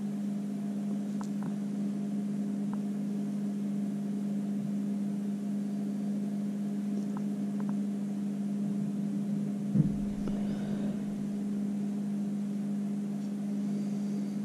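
A steady low hum, with a few faint ticks and one short knock about ten seconds in.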